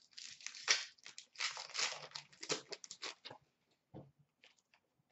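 Hockey card pack wrapper crinkling and tearing as it is torn open, in quick crackly bursts. After about three and a half seconds it gives way to a few faint clicks of cards being slid through by hand.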